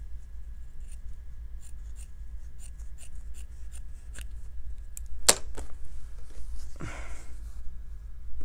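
Scissors snipping fabric to trim the bulk from a quilt seam: a run of light snips, then a louder sharp clack a little after five seconds in, followed by a brief rustle.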